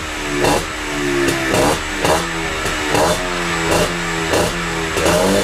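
Minsk motorcycle's single-cylinder two-stroke engine revving in quick repeated throttle blips, about two a second, through a homemade expansion-chamber (resonator) exhaust. The engine is badly worn, with a Yamaha piston and a reed valve fitted.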